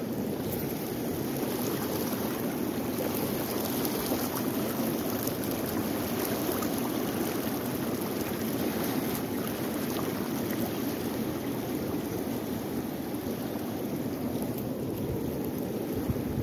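Fast river current running high, rushing steadily over and around the bank rocks.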